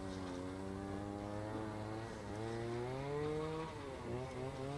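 A small engine revving: its pitch climbs and holds, climbs higher about halfway through, then falls back near the end.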